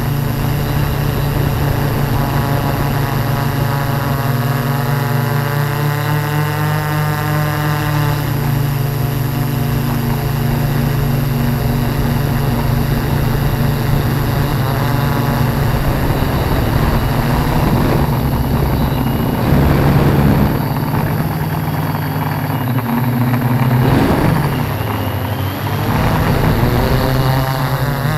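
Tarot 680 Pro hexacopter's brushless motors and propellers humming in flight: a steady low hum with wavering overtones as the motor speeds shift. It swells slightly about twenty seconds in and again a few seconds later.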